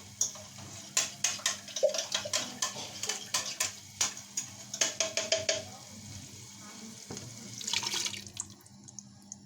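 A spoon scraping and tapping against a blender jar to work out thick blended paste stuck inside, a quick run of sharp clicks and knocks. Near the end comes a brief splashing rush.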